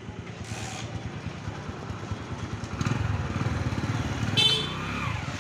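A motorbike engine running close by on the street, growing louder about three seconds in, with a brief high-pitched squeak near the end.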